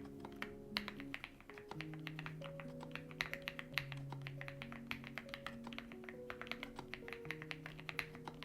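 Custom mechanical keyboard being typed on: a quick, uneven run of key clacks, several a second, over soft background music with slow held notes.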